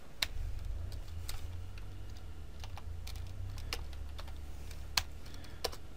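Computer keyboard keys clicking in scattered, irregular keystrokes as code is typed, over a low steady hum. One keystroke about five seconds in is the loudest.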